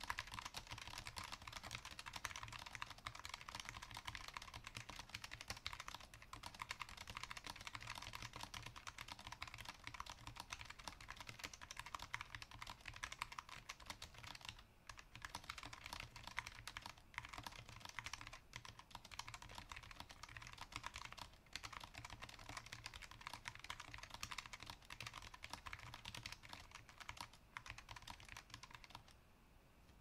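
Steady fast typing on a Logitech G915 TKL low-profile mechanical keyboard with tactile switches: a dense stream of key clicks. There is a short pause about halfway, and the typing stops just before the end.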